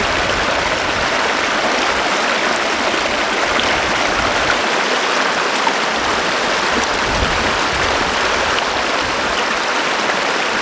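Shallow stream rushing and splashing over boulders in a small rapid, a steady unbroken water noise.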